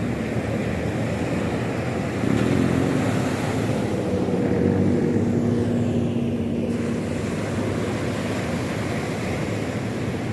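Waves breaking on the shore with wind noise on the microphone, and a steady engine drone that comes in about two seconds in and fades out around seven seconds in.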